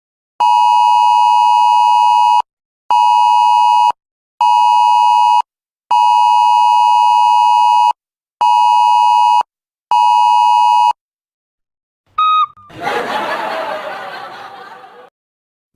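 Censor bleep: a steady beep near 1 kHz sounded six times, in long and short bleeps with gaps between. Near the end a short blip is followed by a noisy burst that fades away over about two seconds.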